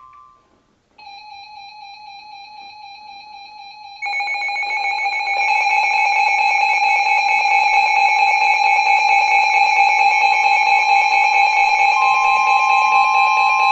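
Emergency Alert System attention tone, electronic and buzzy. A single steady tone comes in about a second in; about four seconds in a louder, denser tone joins and holds steady, and a higher tone is added near the end.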